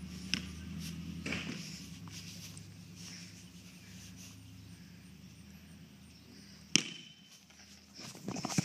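A low steady hum that slowly fades, with a single sharp knock about two-thirds of the way through and a few fainter knocks near the end.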